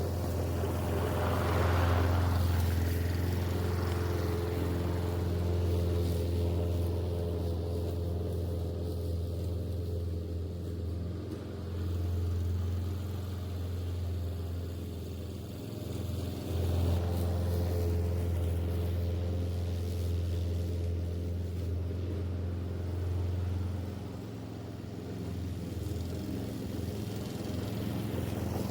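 Small gasoline engine of lawn equipment running steadily, its level easing and swelling a few times.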